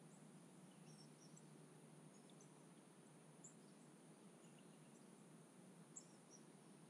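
Near silence: faint outdoor ambience with a steady high hiss and a scattering of short, faint high chirps.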